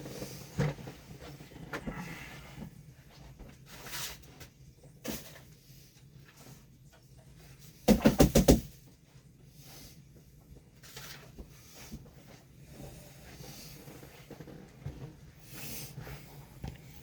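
Kitchen handling noises: scattered knocks, light rustling and clatter, with a quick run of loud knocks about eight seconds in.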